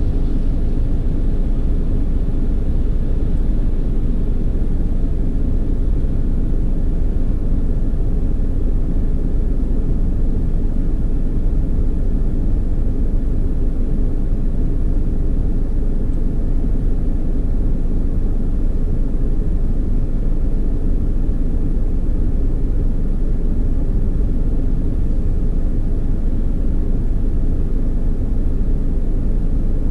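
Automatic car wash machinery running with a steady low rumble.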